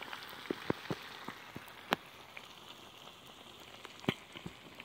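Fish pieces frying in a small pan of hot oil over a wood campfire: a steady sizzle with scattered sharp pops and crackles, the loudest about two seconds in.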